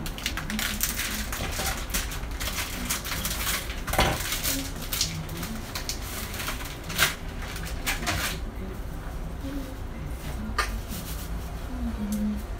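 Kitchen clatter of pots, pans and utensils: irregular knocks and clinks, the sharpest about four and seven seconds in, over a steady low hum.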